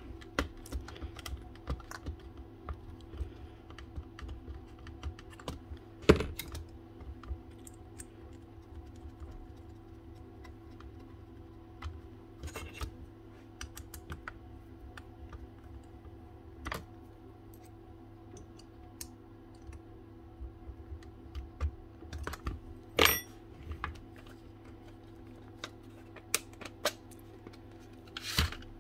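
Irregular small clicks and taps of plastic and metal parts being handled as a Milwaukee M18 crown stapler is reassembled, its cylinder and motor being seated back into the plastic housing. There are sharper knocks about six seconds in, around twenty-three seconds and near the end, over a steady low hum.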